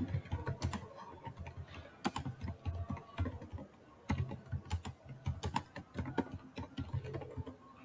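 Typing on a computer keyboard: quick runs of keystroke clicks with short pauses between words.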